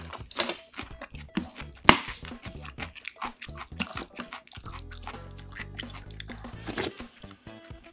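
Close-miked eating sounds: chewing and wet mouth sounds, with a metal spoon clicking against a ceramic rice bowl as food is scooped, the sharpest click about two seconds in.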